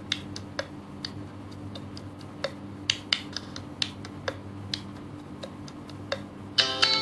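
Scissors snipping: a string of sharp, irregular clicks over a low steady hum. Guitar music comes back in near the end.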